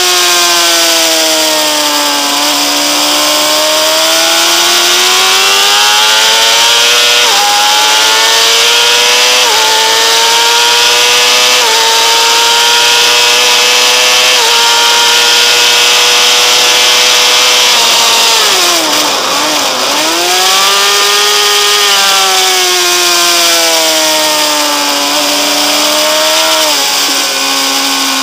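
Honda CBR600RR inline-four engine at high revs under hard acceleration, its pitch climbing through four quick upshifts about two seconds apart and holding near the top of the rev range. About two-thirds through the revs drop sharply under braking and downshifts, then rise again out of the corner and fall once more near the end, with a steady wind rush over it.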